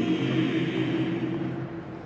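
A choir singing a long held chord that fades away about one and a half seconds in.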